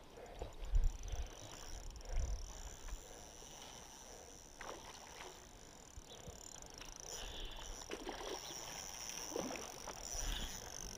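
Faint water splashing and swirling from a hooked brown trout being played at the surface close to the bank, with low bumps of wind or handling on the microphone about one and two seconds in.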